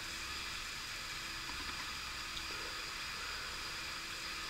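Steady background hiss of room tone with a few faint, steady high tones; no distinct event stands out.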